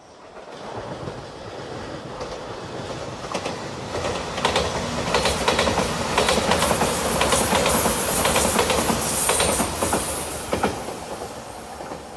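A five-car JR Shikoku Shiokaze limited express train in Anpanman livery passing over a level crossing. Its rumble builds from about half a second in and is loudest in the middle, with rapid clicks of the wheels over the rail joints, then fades near the end as the last cars go by.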